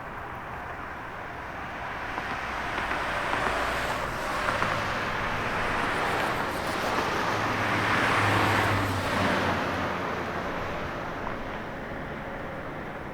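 Road traffic: a steady wash of tyre and engine noise, with a motor vehicle passing. It builds over several seconds, is loudest about eight seconds in with a low engine hum under the tyre noise, then fades.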